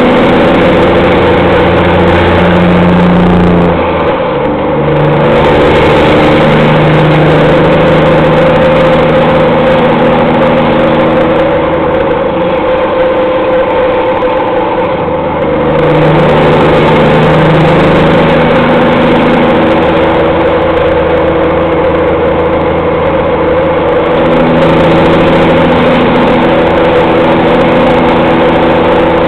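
Peterbilt semi truck's diesel engine running loud through straight-pipe exhausts while under way, its note stepping in pitch. The sound drops off briefly about four seconds in and again for a few seconds midway, then comes back at full strength.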